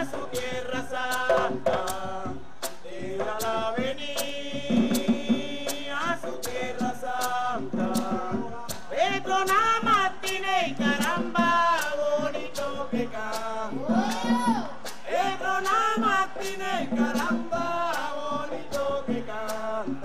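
A live folk song: voices sing over gourd maracas shaken in a steady beat of about two strokes a second.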